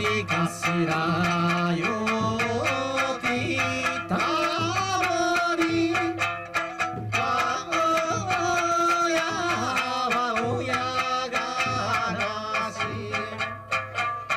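Okinawan Eisa folk music: a singer's melody over plucked sanshin, with steady, regular drum beats.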